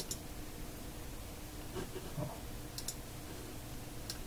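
A few short, sharp clicks of a computer being worked by hand: one at the start, a quick pair a little under three seconds in, and another near the end. A faint steady hum runs underneath.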